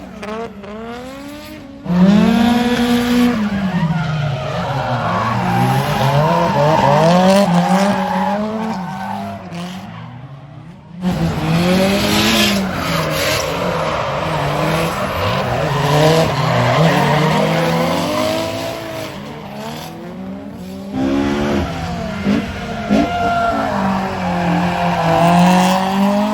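Drift cars sliding with their tyres squealing, engines revving up and down as the drivers work the throttle. The sound breaks off and jumps abruptly about 2 seconds in and again about 11 seconds in, as one clip gives way to the next.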